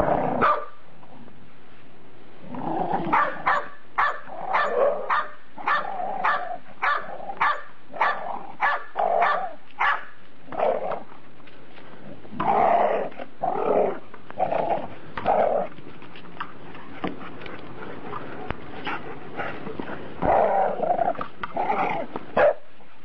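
Dog barking at play: a quick run of short barks, about two a second, for several seconds, then louder, longer bouts with pauses between them.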